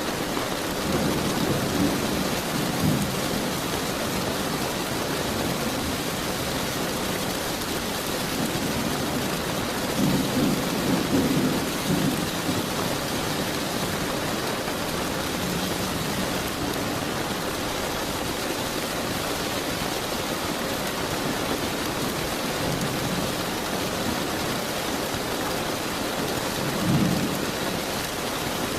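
Steady rain falling, with thunder rumbling several times: once near the start, a longer roll about ten seconds in, and a short one near the end.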